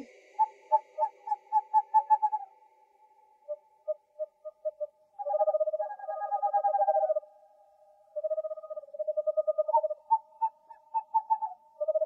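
Owl calls: bouts of quick short notes and pulsing trills, with short pauses between the bouts.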